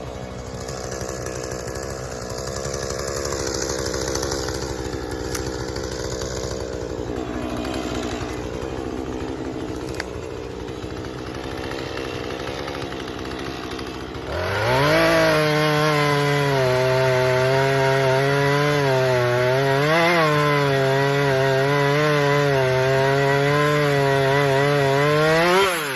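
Two-stroke gas chainsaw running, lower and rougher for about the first fourteen seconds. It then revs up to a loud, steady high-rev buzz that wavers slightly and drops back right at the end.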